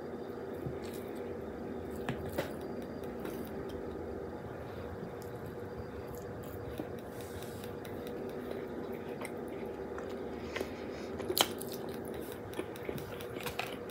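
Chewing and eating noises from a person eating chili dogs and tater tots with a plastic fork, with a few sharp clicks about two seconds in and again near the end, over a steady hum.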